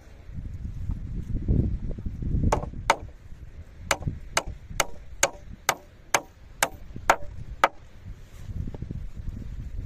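A run of about eleven sharp chopping strikes, roughly two a second, under a steady low rumble of strong wind on the microphone.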